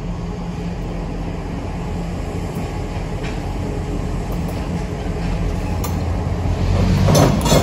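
An EMD GP38-2 diesel locomotive's 16-cylinder two-stroke engine rumbling, growing louder as it rolls closer. About seven seconds in come a few sharp clanks of its wheels striking the crossing diamond.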